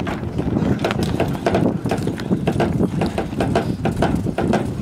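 A yacht's sail and rigging flapping and rattling in the wind: irregular sharp slaps and knocks several times a second over a steady low rush of wind on the microphone.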